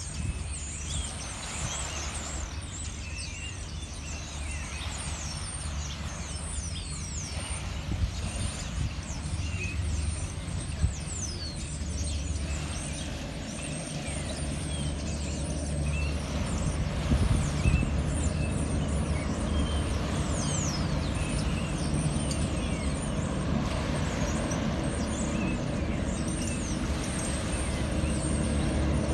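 Passenger hovercraft's engines and twin ducted propellers droning as the craft approaches across the water, growing steadily louder. Birds chirp faintly above the drone.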